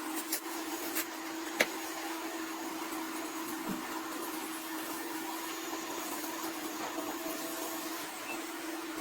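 A steady machine hum, like an electric motor running, holding one constant tone over a hiss, with a few sharp clicks in the first two seconds, the loudest a single knock about a second and a half in.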